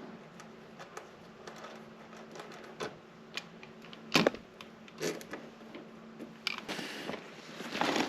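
Scattered small clicks and knocks of hard objects being handled, with two louder clacks about four and five seconds in and a rustling scrape near the end.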